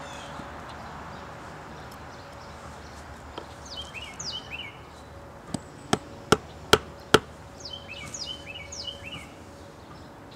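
Wooden baton knocking on the spine of a scandi-ground bushcraft knife (Adventure Sworn Wayfarer), driving the blade deeper into a stick to cut a notch. Five sharp knocks come about two and a half a second, the first one lighter.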